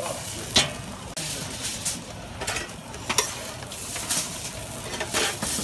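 Stall counter clatter: scattered sharp clicks, knocks and rustles as a wrap is folded and handled.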